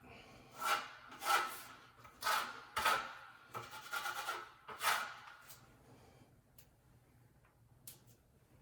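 Repeated rubbing strokes, about eight over five seconds, then a few faint clicks.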